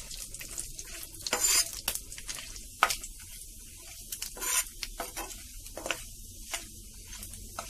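Cashews and almonds sizzling as they fry in hot ghee, with a steel spoon stirring them and knocking and scraping against the pan every second or so.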